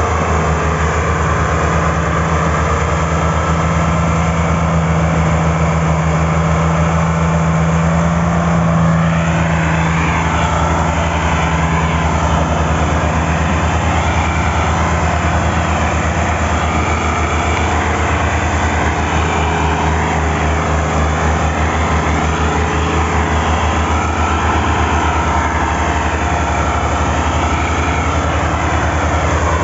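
Diesel engines of two farm tractors, a Massey Ferguson 385 and an Al-Ghazi, running hard at steady high revs under heavy load while pulling a stuck, loaded sugarcane trolley. The engine drone holds steady with no let-up.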